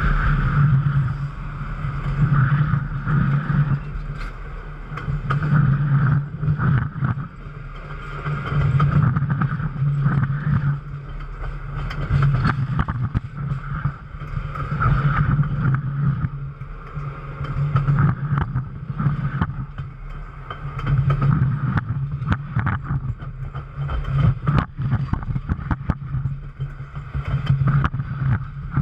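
Steel wheels of the Pere Marquette 1225 steam train's passenger cars rolling over the rail right beside the microphone: a loud rumble that swells and eases about every three seconds, with many sharp clicks and knocks.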